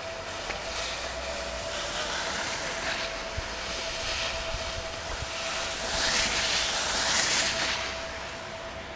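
Skis sliding and scraping over packed snow, a steady hiss that swells louder about six seconds in for a second and a half. A thin steady tone runs underneath.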